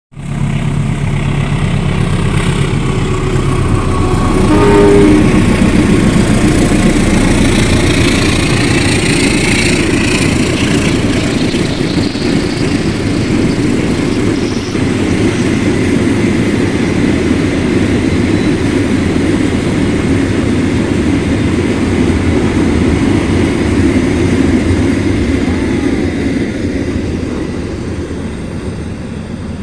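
A train passing close by: a short horn blast about five seconds in, then a long steady rumble of the train going past, fading in the last few seconds.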